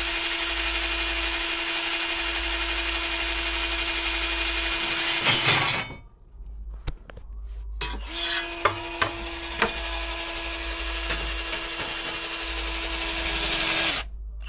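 A 20-volt cordless drill boring a hole through metal, its motor running steadily. It stops about six seconds in and starts again about two seconds later with a few sharp clicks, then cuts out briefly near the end.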